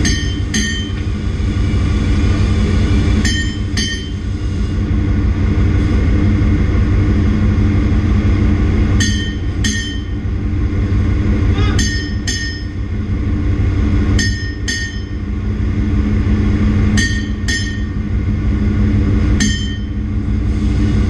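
Steady loud drone of ship's engine-room machinery, with pairs of sharp, ringing metal-on-metal strikes about half a second apart, repeating every two to five seconds.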